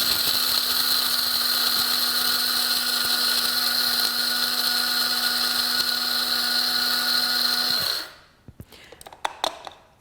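Cuisinart DCG-20BKN blade coffee grinder running steadily, its stainless steel blade chopping coffee beans. The motor stops about eight seconds in, followed by a few light clicks and knocks.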